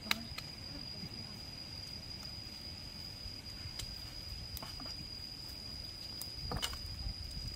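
Steady high-pitched insect drone over a low outdoor rumble. A few sharp clicks come right at the start, and footsteps scuff over rocks near the end.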